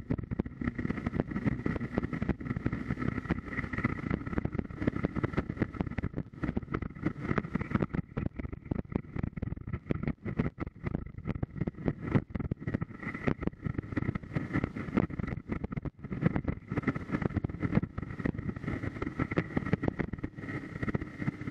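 Hero XPulse 200 4V motorcycle's single-cylinder engine running steadily as the bike is ridden, with a rapid, even pulsing.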